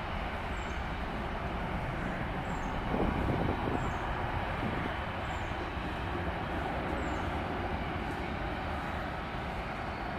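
Steady jet engine noise from a Boeing 737-800's CFM56-7B turbofans at climb thrust, as the airliner climbs out after takeoff, swelling slightly about three seconds in.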